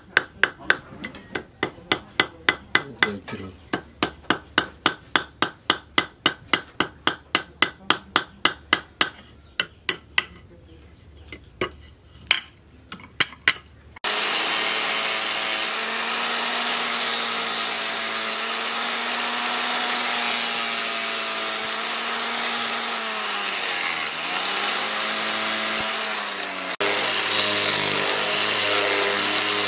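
A small hammer tapping rapidly, about three to four blows a second, driving pins through the wooden handle scales of a steel cleaver; near the middle the blows slow to a few single taps. About fourteen seconds in, an electric angle grinder with a sanding disc starts and runs steadily, its pitch dipping briefly under load as it sands the wooden handle.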